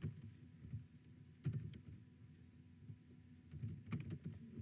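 Computer keyboard keys clicking as a word is typed: scattered single clicks, with a quick run of several clicks about four seconds in, over a low background murmur.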